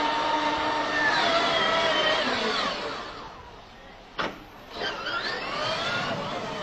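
Electric motor of a child's ride-on toy car whining as it drives, dropping in pitch and fading as it slows about two to three seconds in. A sharp click comes about four seconds in, then the whine climbs in pitch again as it speeds up.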